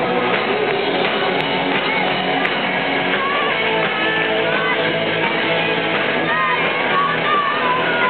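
Live rock band playing, with electric guitars and singing.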